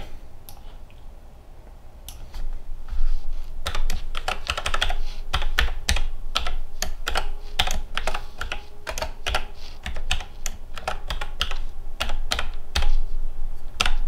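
Typing on a computer keyboard: irregular key clicks, only a few in the first couple of seconds, then a fast, steady run of keystrokes.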